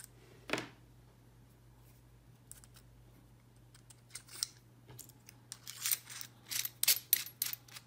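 Small metallic clicks and scrapes of a soldering iron tip being swapped on its handle. One click comes about half a second in, then a quick run of clicks and scrapes builds up in the second half as the tip is worked into place.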